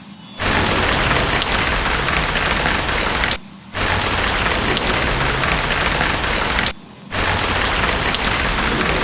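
Heavy rain with a low thunder rumble, played as a short repeating loop: the sound drops away for a fraction of a second about every three and a half seconds, three times.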